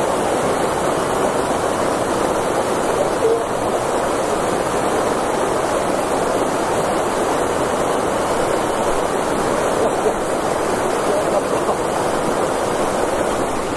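Flowing river water rushing loudly and steadily, an even wash of sound without breaks.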